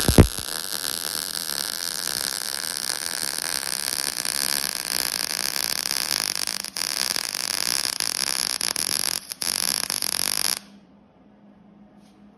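Wire-feed (MIG) welder arc running steadily on a steel air tank, laying a bead around a threaded bung. It starts with a loud pop as the arc strikes, breaks briefly twice, and stops sharply about ten and a half seconds in.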